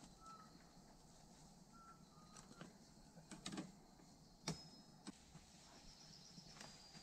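Near silence in woodland: faint scattered clicks and snaps, one sharper click about four and a half seconds in, and a few brief faint high chirps.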